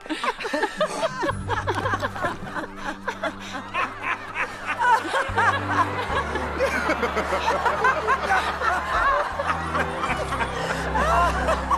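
A crowd of many voices laughing and chuckling together, over background film music whose held low notes come in about a second in.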